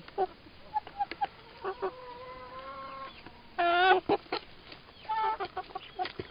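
Domestic chickens clucking and calling: a string of short calls, one drawn-out call near the middle, and the loudest squawk a little past halfway.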